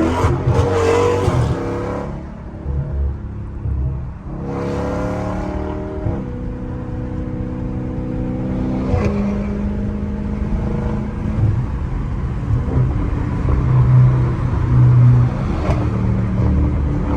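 Catless Dodge Scat Pack's 392 HEMI V8 exhaust under way. The revs climb about four seconds in, then the engine holds a steady cruise, with a couple of sharp exhaust pops.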